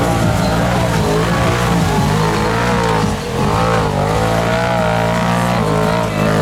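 Off-road mud racer's engine revving hard at high rpm. Its pitch surges up and down again and again, with a short dip about three seconds in.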